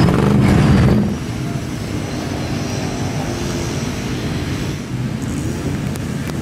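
A lifted Ford mud truck's engine running loud in the mud, cut off suddenly about a second in by a quieter, steady drone of distant engines and outdoor noise.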